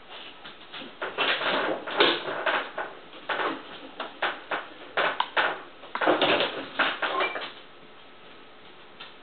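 A dog rummaging in a stainless steel kitchen trash can: a run of irregular rustling, scraping and knocking bursts from the lid and the rubbish inside, lasting about six seconds.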